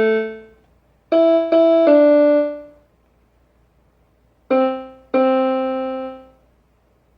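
Intro music on a keyboard with a piano-like tone: three notes in quick succession, a pause, then two more, each ringing out and fading.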